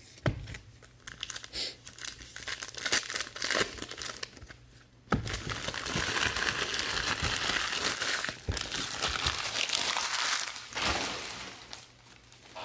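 Crinkly plastic trading-card packaging being torn and crumpled: scattered crackles and ticks at first, then continuous crinkling from about five seconds in that dies down near the end.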